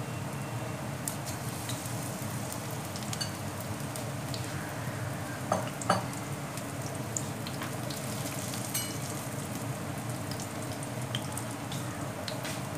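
Pakoras deep-frying in hot oil in a wok: a steady sizzle with scattered small crackles and pops, two of them louder a little after the middle.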